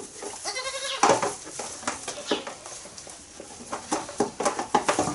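A young goat bleats once, briefly, about half a second in, with scattered rustling and clicking around it.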